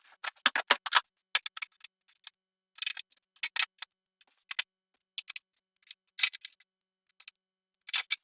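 Tightening the faucet's mounting nuts by hand and with a tool under a sink top: groups of quick, sharp clicks and ticks with short pauses between them.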